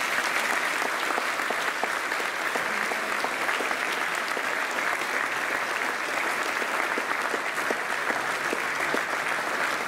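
A large audience of students applauding steadily, many hands clapping together.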